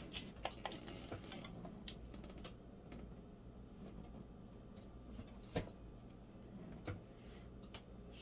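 Scattered light clicks and knocks on a stainless steel counter as a digital kitchen scale's buttons are pressed and the scale is moved away, the loudest knock about five and a half seconds in. A low steady hum runs underneath.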